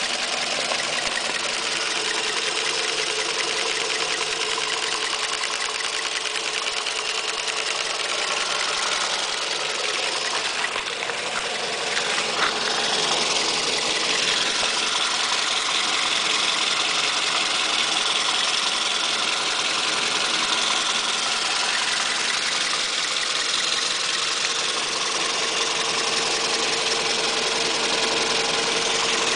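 Toyota 2NZ-FE 1.3-litre VVT-i four-cylinder petrol engine idling steadily when warm, a little louder from about halfway on. The owner had worried about its noise, which a Toyota mechanic judged normal.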